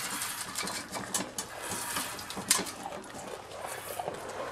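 Goat being hand-milked: streams of milk squirting into a pail in short, uneven hissing spurts, about two a second.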